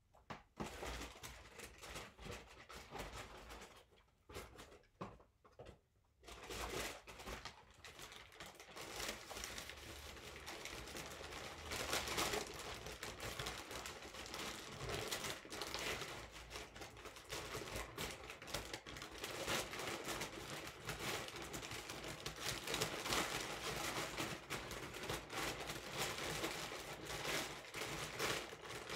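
Paper takeaway bag being handled and opened: a few scattered rustles at first, then steady crinkling and rustling of the paper from about six seconds in.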